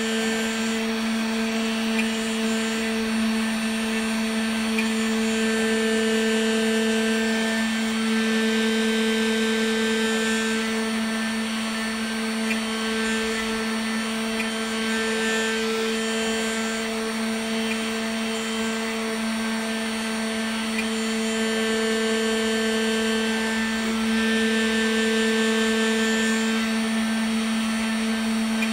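Homemade CNC router running, its spindle motor humming steadily as the end mill cuts into a block of carving wax. The level swells and dips a little as the cut goes on.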